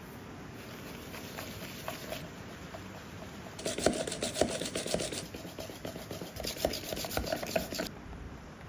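Metal push whisk beating butter and sugar in a plastic mixing bowl: a rapid, dense scraping and clattering starts about three and a half seconds in and stops shortly before the end. Before it there are only a few light taps.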